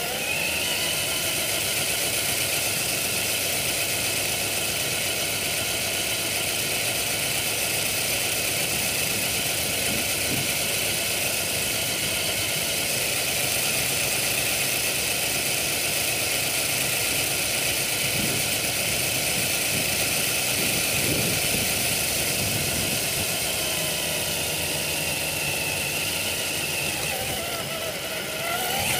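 Traxxas TRX-4 RC crawler's electric motor and gearbox whining steadily as it drives, heard from a camera mounted on the truck, over a steady hiss. The whine dips and rises in pitch near the end.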